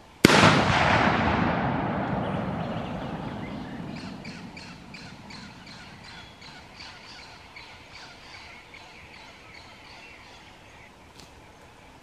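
A single rifle shot at a wild pig: a sharp crack, then a long rolling echo that fades over several seconds. A few seconds after the shot, a bird starts calling in a rapid, evenly spaced series of about three calls a second, stopping near the end.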